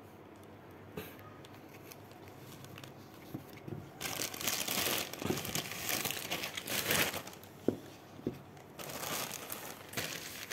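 Rustling and crinkling from the sandal and its straps being handled, in two spells: one starting about four seconds in and lasting a few seconds, and a shorter one near the end, with a few light clicks.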